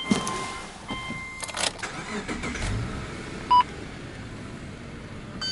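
A Subaru Legacy B4 3.0R's EZ30 flat-six being started. A two-tone chime beeps about a second in, then the starter cranks and the engine catches around two to three seconds in and settles to a steady idle. One short loud beep comes just past halfway.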